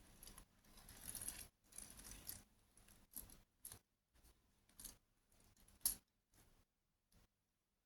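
Faint handling of small hard toys: irregular clicks, rattles and rustles, with one sharp click about six seconds in.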